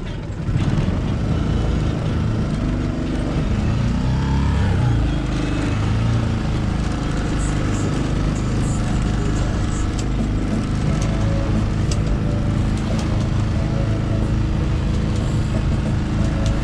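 Outboard motor of a 19-foot O'Day Mariner 2+2 sailboat running steadily under way, with water rushing and splashing along the hull.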